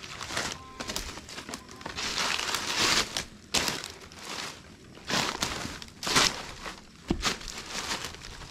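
Rustling and crunching in irregular bursts about a second apart, with a longer stretch of crackling about two seconds in.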